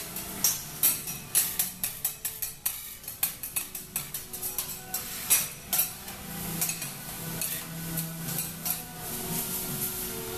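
Metal spatulas clacking and scraping on a flat steel teppanyaki griddle in quick, irregular strokes as fried rice is chopped and turned.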